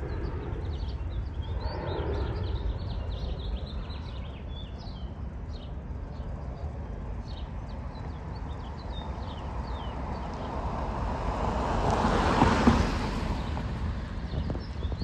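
Jet airliner climbing out after takeoff, heard as a distant low steady rumble, with small birds chirping throughout. About ten seconds in a louder rushing sound builds to a peak and then eases off.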